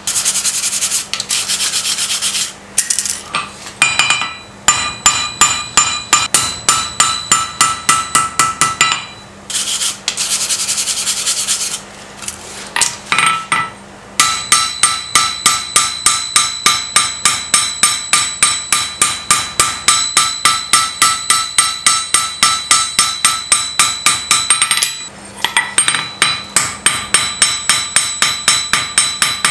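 Hot steel being worked on an anvil. A wire brush scrubs the scale off the glowing blade twice for a couple of seconds each time. The rest is long runs of steady hammer blows, each one ringing the anvil, with a short pause about three-quarters of the way through.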